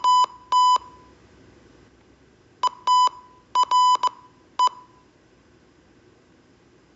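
Morse code tone keyed in dots and dashes spelling the word ARE. The tail of one playing ends in the first second, and about 2.5 s in the word plays again in full: dot-dash, dot-dash-dot, dot.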